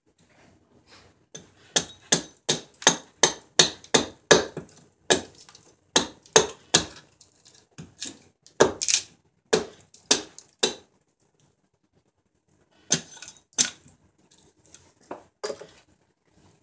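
Hatchet chopping a silver birch ladle blank on a chopping stump, knocking down the sides: a quick run of sharp chops, about two a second, then a pause of about two seconds and a few more chops near the end.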